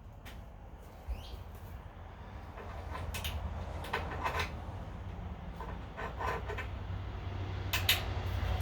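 Scattered knocks and clatters of metal parts being handled and shifted, with a steady low rumble underneath.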